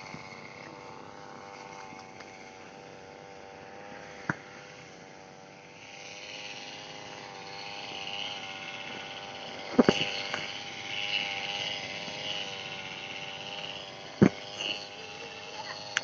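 Petrol brush cutter (motorised grass trimmer) engine running steadily, its pitch wavering slightly; from about six seconds in a higher rasping noise joins it. Sharp knocks cut through, the loudest about ten seconds in and again about fourteen seconds in.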